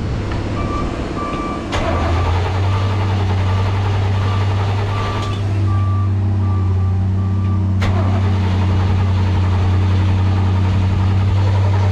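Freshly installed inboard boat engine starting about two seconds in and then running steadily, on its first start in a long time, with its cooling water hooked up. A high-pitched warning buzzer beeps at an even pace over the first several seconds, then stops.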